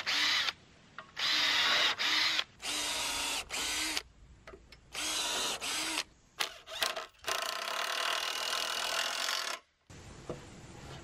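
Cordless drill boring holes into a wooden 4x4 through the holes of a metal swing-set bracket, in repeated bursts of one to two seconds with the trigger let off in between. A longer run of drilling near the end cuts off suddenly, leaving only faint outdoor background.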